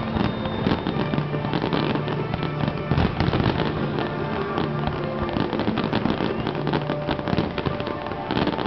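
Aerial fireworks in a dense finale barrage: many shells bursting in quick succession, a near-continuous run of bangs and crackling.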